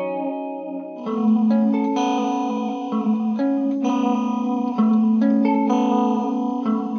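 Electric guitar chords played through a Chase Bliss Generation Loss MKII tape-emulation pedal set for chorus. The pedal's randomized wow modulation makes the pitch waver, and partway through flutter is added for a more textured chorus. A new chord is struck about a second in and rings on.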